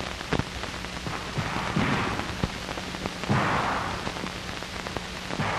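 Three muffled revolver shots, one about every second and a half to two seconds, over the steady hiss, crackle and low hum of a worn 1970s film soundtrack.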